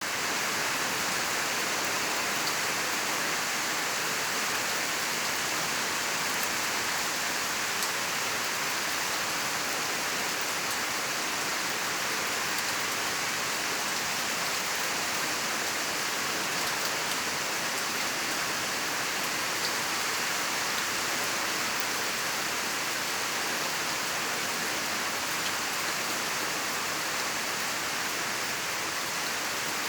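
Steady rain falling, an even hiss with the odd faint drop tick.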